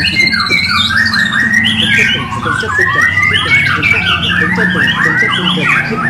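Caged white-rumped shama (murai batu) singing a long unbroken run of rapid, varied whistled phrases that rise and fall, over a steady low hum.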